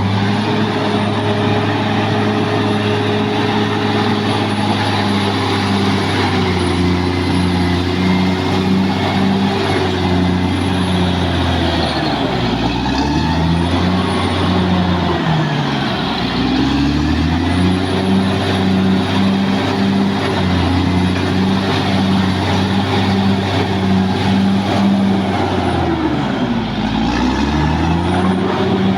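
Caterpillar D6R XL bulldozer's diesel engine running hard, with a faint high whine over it. Its pitch sags and recovers three times, about halfway through, a little later, and near the end.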